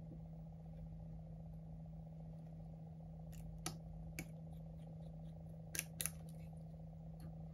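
A few small, faint clicks and ticks of metal repair tools handling the tiny screws and plates inside an iPhone 11, spaced irregularly over the second half, over a steady low hum.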